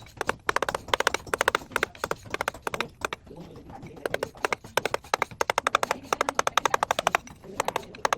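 A hammer striking a carving chisel into stone in quick runs of sharp taps, several a second, with short pauses between the runs.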